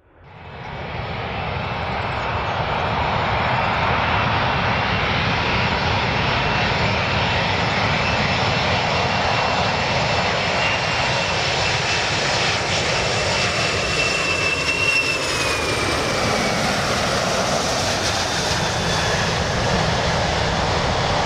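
Four-engined Boeing 747-400 jetliner on landing approach with gear down: a loud, steady jet rumble and roar with a faint high engine whine. The sound fades in at the start, and the whine slides down a little about fifteen seconds in.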